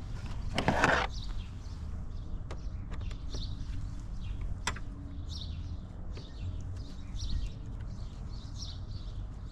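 Birds chirping repeatedly over a steady low rumble, with a brief rustle about a second in and a few sharp clicks.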